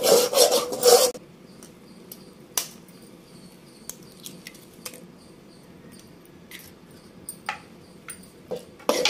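Metal spatula scraping and stirring egg masala in an aluminium pan for about the first second, then a quiet stretch with a few light clicks and taps as an egg is cracked with a knife and dropped in. The scraping starts again near the end.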